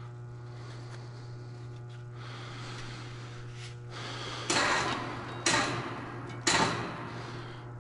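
Three short scraping clunks about a second apart as a Detroit Diesel Series 60 crankshaft, hanging in a lifting strap, is twisted and worked down into the engine block's main bearing saddles, over a steady low shop hum.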